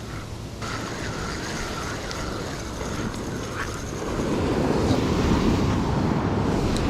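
Gentle surf washing on a beach, growing louder about four seconds in, with wind buffeting the microphone. A faint wavering squeak sounds during the first few seconds.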